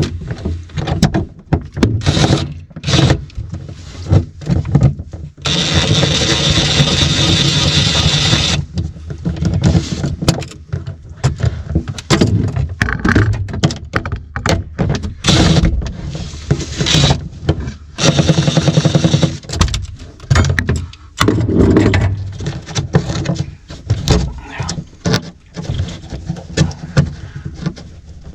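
Hand tools and metal hose clamps clinking and knocking as hoses are worked off their fittings. A steady noise runs for about three seconds from about six seconds in, and another for about two seconds near twenty seconds.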